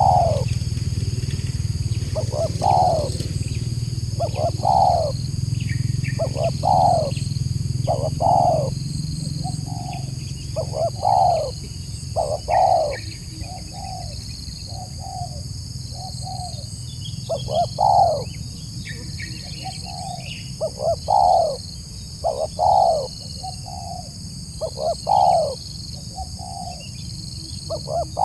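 Spotted dove (tekukur) cooing: repeated coos in phrases about every one to two seconds, each note falling in pitch. A steady high-pitched drone and a low hum run underneath.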